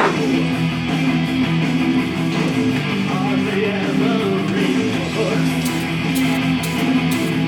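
Background music: guitar-led instrumental with strummed chords.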